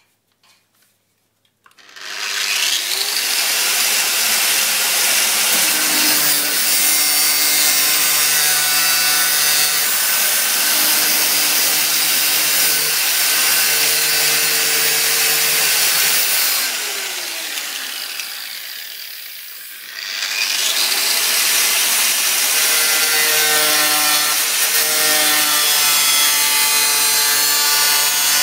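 Electric angle grinder grinding rust off the steel wheel arch of a camper van body, a steady loud whine with grinding noise. It starts about two seconds in, dies away over a few seconds near the middle, and picks up again about twenty seconds in.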